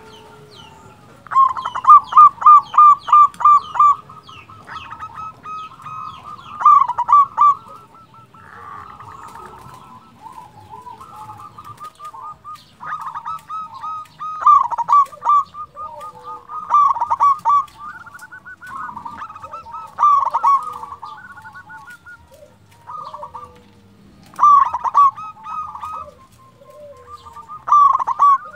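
Zebra dove (perkutut) singing its staccato cooing song: bursts of quick, evenly spaced cooing notes repeated every few seconds. The loudest is a run of about seven notes near the start.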